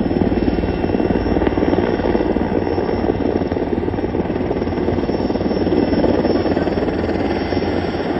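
Firefighting helicopter in flight carrying a water bucket on a long line: a steady, fast rotor beat over the engine noise.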